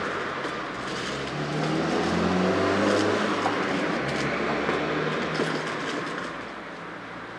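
A passing motor vehicle: engine hum and road noise that swell to a peak about three seconds in and then fade away, with a couple of light clicks.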